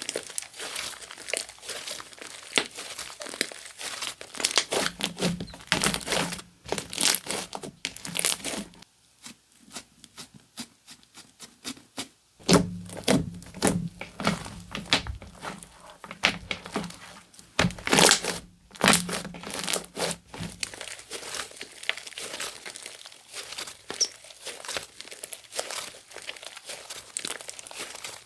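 Slime being squeezed, stretched and poked by hand, giving dense crackling and clicking pops. It goes quieter for a few seconds about nine seconds in, then the crackling picks up again.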